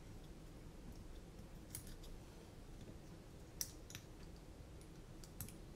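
A few faint, light clicks and taps of small carbon-fibre drone frame parts being handled and fitted together by hand. The sharpest click comes about three and a half seconds in.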